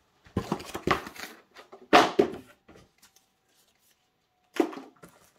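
Rustling and clattering as plastic-wrapped cardboard packaging is handled, with one sharp, loud knock about two seconds in and a short rustle near the end.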